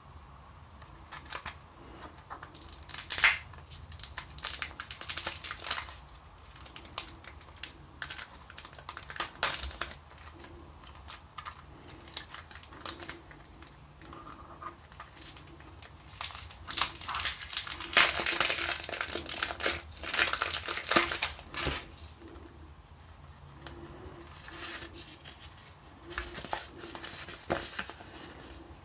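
Clear plastic wrapper being torn and peeled off a sealed Sony MiniDisc case, crinkling in irregular bursts, loudest about three seconds in and again for a few seconds past the middle.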